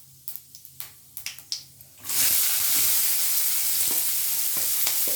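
Finely chopped onion tipped into hot oil with whole spices: a loud sizzle starts suddenly about two seconds in and carries on, with the clicks of a spoon stirring in the pan. Before it, faint pops and clicks.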